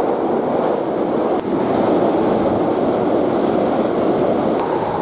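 Hankyu electric train passing through a station at speed: a steady rushing rumble of wheels on rail and wind, with a brief dip about a second and a half in.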